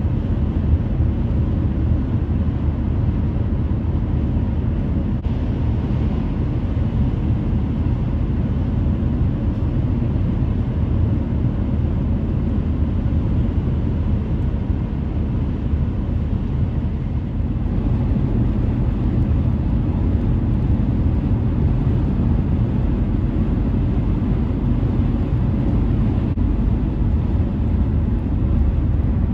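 Steady low road and engine rumble inside a car cabin at highway speed, getting a little louder about two-thirds of the way through.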